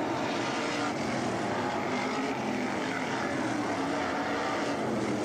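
Winged sprint cars' V8 engines running at racing speed, several engines heard together at a steady, unbroken level.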